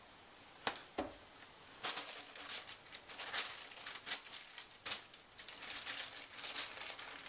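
Two short knocks, then the plastic packaging of a folded plastic drop sheet crinkling and crackling in irregular bursts as it is handled and turned over.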